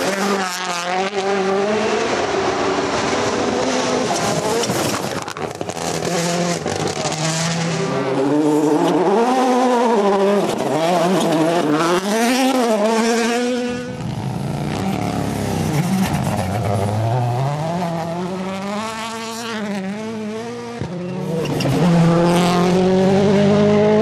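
WRC Rally1 cars' turbocharged engines revving hard on gravel, the engine note climbing and dropping sharply again and again through gear changes as the cars pass, over the hiss of sprayed gravel.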